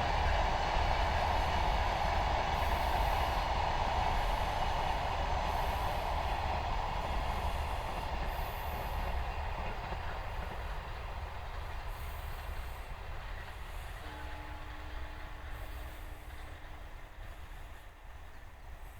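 Freight train of container wagons running past on the rails, a steady rolling rumble that gradually fades as the train draws away. A faint steady hum comes in near the end.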